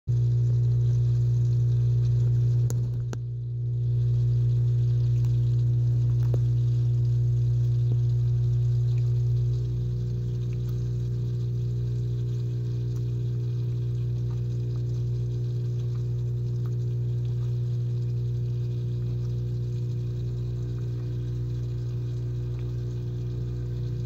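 Steady low electrical hum with a few faint clicks. The hum drops slightly in level about ten seconds in.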